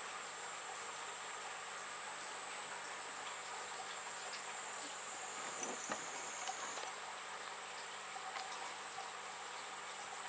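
Steady faint hiss with a thin, high-pitched whine, and a few soft knocks about halfway through as the camera is moved close in.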